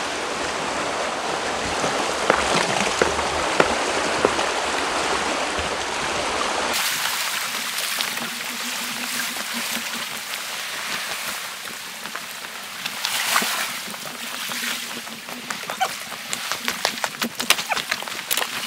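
Seawater rushing and splashing over a rocky shore, a steady rush of noise. About seven seconds in it turns thinner and hissier, and near the end comes a quick run of sharp clicks.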